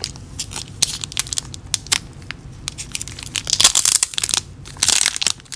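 Clear plastic sleeve crinkling and crackling as it is handled and a stack of trading cards is worked out of it. The crinkling gets louder about three and a half seconds in and again near the end.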